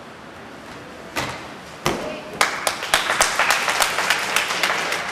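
Balance beam dismount: a thud about a second in, then a louder thump as the gymnast lands on the mat just before two seconds, followed by spectators clapping.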